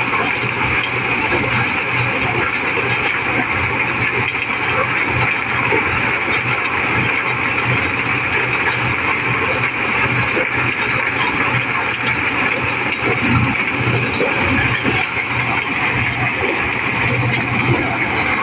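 Engine-driven mobile corn sheller running steadily under load while corn is fed in, a constant loud mechanical din of engine and threshing drum with a steady hissing rush on top as shelled kernels stream out of its chutes.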